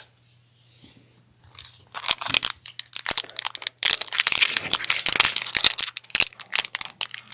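Trading-card packaging crinkling and crackling as it is handled, dense rapid crackles starting about two seconds in.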